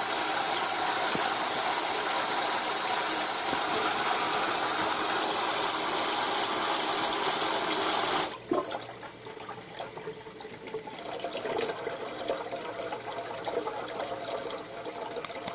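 Kitchen tap running into the sink in a steady rush of water that stops abruptly about eight seconds in, leaving only faint, uneven sounds.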